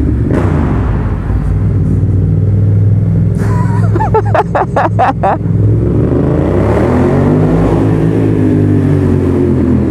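Yamaha FZ-07's parallel-twin engine running very loud through a full aftermarket exhaust system, echoing in a parking garage, with the engine note climbing and falling again as the throttle is opened and eased off about six to nine seconds in. The exhaust suddenly got much louder partway through the ride, for a reason the rider does not know.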